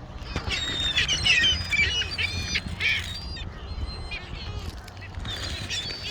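A flock of birds calling, many short overlapping calls at once, in a dense spell over the first half and again near the end, over a steady low rumble.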